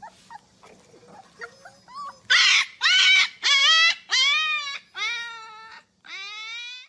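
Husky puppy howling: faint squeaks for about two seconds, then six short, loud howls in quick succession, the last one rising steadily in pitch.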